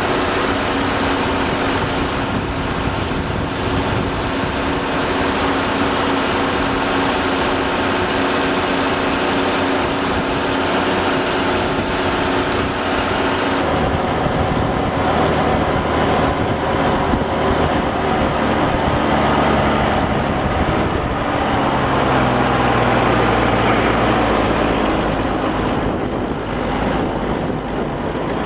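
New Holland TM130 tractor's diesel engine running steadily, with its note shifting lower about halfway through.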